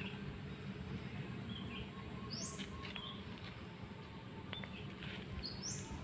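Birds chirping: a few short, scattered calls, with a quick rising high note about two seconds in and another near the end, over a steady low background noise.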